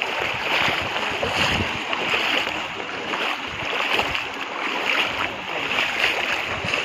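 Shallow pond water splashing and sloshing continuously and irregularly as many people wade through it and push bamboo basket fish traps down into the water.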